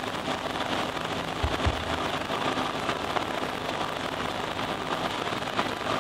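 Cessna 172's piston engine and propeller running, heard inside the cockpit as a steady, dense rushing noise with a faint steady hum, while the plane rolls over grass; two short low thumps about one and a half seconds in.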